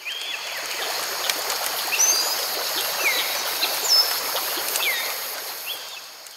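Running stream water, a steady rushing babble, with birds chirping over it in several short falling chirps. The sound fades out toward the end.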